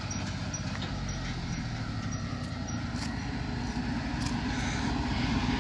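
Farm machinery engine running steadily, slowly getting louder.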